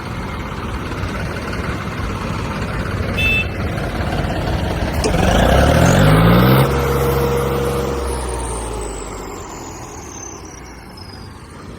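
A motor vehicle engine running over road noise. It revs up with a rising pitch about five seconds in, is loudest around six seconds, then holds and fades away, with a short high beep about three seconds in.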